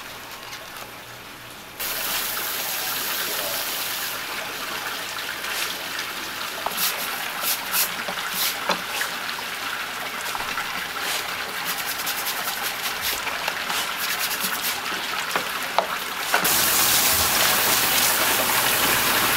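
Water from a rubber hose splashing over a cutting board, then sprayed onto a tiled floor. It starts about two seconds in and gets louder near the end.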